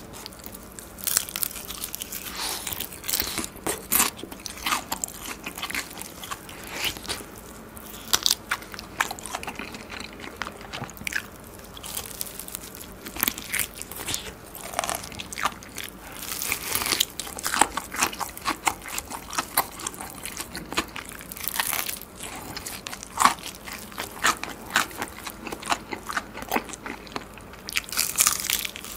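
Biting and chewing a crispy deep-fried chicken drumstick from a Korean market-style whole fried chicken: repeated irregular crunches of the crackly fried skin, with chewing between bites.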